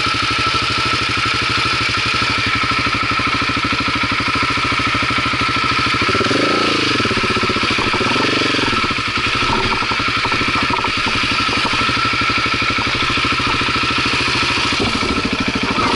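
Dirt bike engine idling steadily, with two brief revs rising and falling in pitch about six and eight seconds in.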